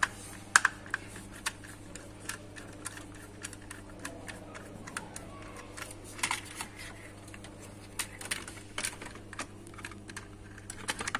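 Irregular sharp clicks and taps of plastic and metal as a DIN-rail digital energy meter is handled among circuit breakers and a screwdriver works its terminal screws. A steady low hum runs underneath.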